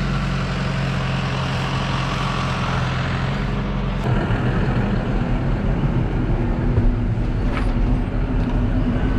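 Tractor diesel engine running steadily. About four seconds in, its note turns rougher and more uneven.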